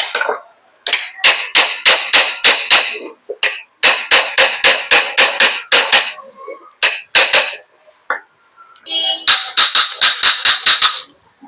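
Rapid metallic tapping on a ceiling fan's top cover, about five strikes a second in four runs, each strike ringing briefly: the cover being knocked down into place over the bearing.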